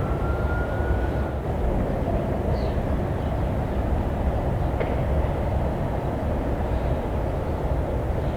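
Steady low outdoor rumble, likely wind on the microphone and distant traffic, with a faint high steady tone that stops about a second in.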